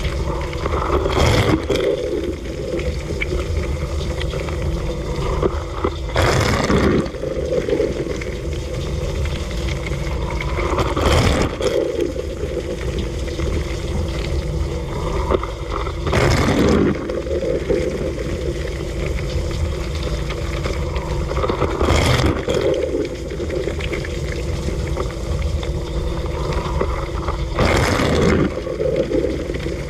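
Dishwasher running in its wash cycle, heard from inside the tub: a steady pump hum with water spraying and sloshing, swelling in a rushing surge about every five seconds.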